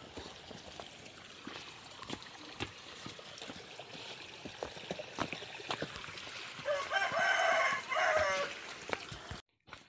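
A rooster crows loudly, one broken call of a second and a half starting about seven seconds in, over the irregular scuffs of footsteps on a concrete path.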